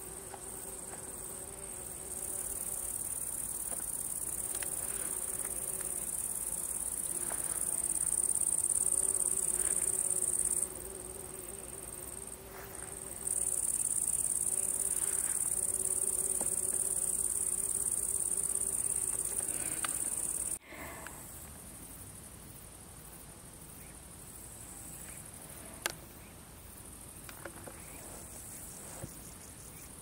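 Insects stridulating in grass: a steady, high-pitched buzzing trill that breaks off briefly about eleven seconds in and stops about twenty seconds in, leaving a fainter buzz. Beneath it, a lower wavering hum runs through the first twenty seconds.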